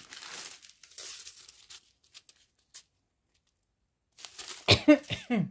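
Thin plastic bead-sachet strips from a diamond painting kit crinkling and rustling as they are handled, with a few small clicks. After a short pause, a brief, louder sound with a falling, voice-like pitch comes near the end.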